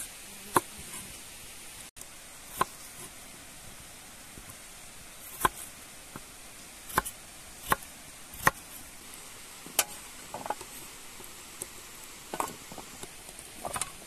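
Chef's knife cutting peeled raw potatoes on a wooden cutting board: about ten sharp knocks of the blade meeting the board, at uneven intervals over a steady background hiss.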